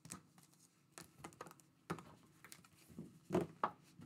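Trading cards and hard plastic card holders being handled and set down on a table: a run of light clicks and taps, with a few louder knocks near the end.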